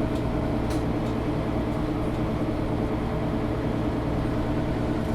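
Engine of a Mercedes-Benz O530 Citaro G articulated city bus running at a steady speed while the bus drives, heard from inside the passenger cabin as an even, steady drone.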